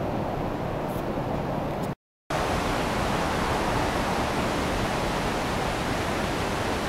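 A steady, even rushing noise, broken by a split second of silence about two seconds in.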